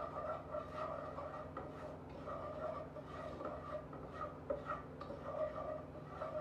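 A butter-and-flour roux bubbling in a pan while it is stirred, the utensil scraping and ticking against the pan in repeated soft strokes.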